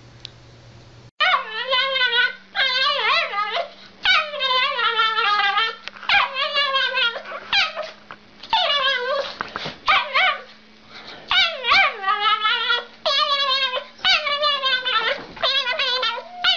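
Small dog yowling: a run of long, wavering, whine-like howls, one after another, starting about a second in.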